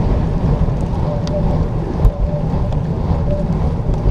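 Wind buffeting the microphone of a moving bicycle, a steady low rumble, with one brief knock about two seconds in.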